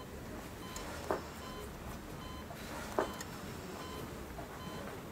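Bedside patient monitor giving repeated short, high beeps, with two sharp knocks about two seconds apart, the first about a second in.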